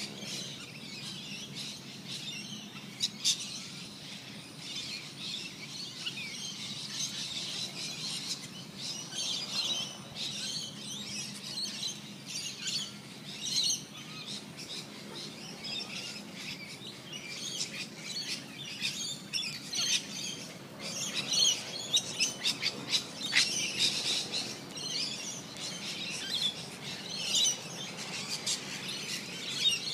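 Birds chirping and twittering: many short, high calls overlapping, louder and denser in the second half.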